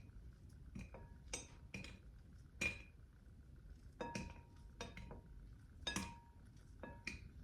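Light, irregular clinks of a kitchen utensil against a dish, about a dozen taps, some leaving a short ringing tone, while banana slices are laid into a bowl.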